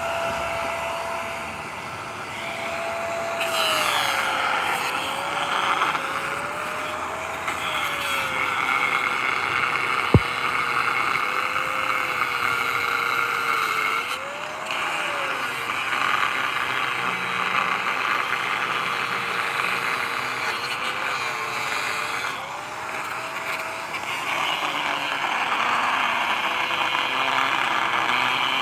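Handheld electric angle grinder cutting a steel reinforcing rod: a steady motor whine that sags in pitch as the disc bites into the steel and rises briefly when the pressure eases, over a hissing grind of disc on metal. One sharp click about ten seconds in.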